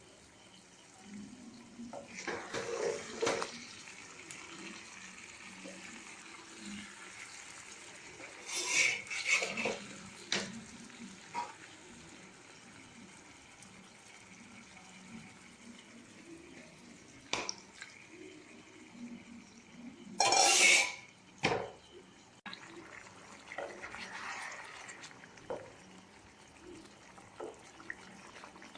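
Cooking pots and metal utensils clattering now and then, with water sounds, over a low steady background; the loudest clatter comes about two-thirds of the way through.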